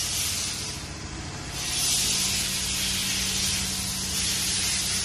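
Steady hissing workshop noise with a faint low hum underneath; the hiss dips briefly about a second in, then returns.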